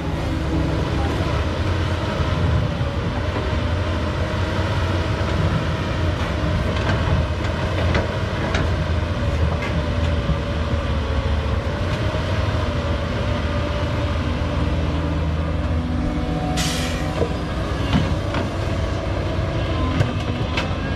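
Doosan crawler excavator's diesel engine running steadily under load, with a wavering hydraulic whine over the rumble. A few sharp knocks come through, and a short hiss sounds near the end.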